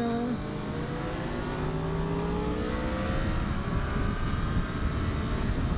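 Motorcycle engine accelerating under way, its pitch rising steadily for the first few seconds, with wind rushing over the helmet microphone.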